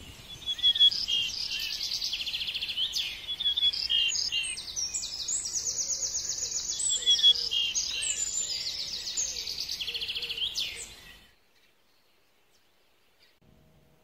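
Small songbirds chirping and singing in quick, high trills and repeated chirps, which cut off suddenly about eleven seconds in.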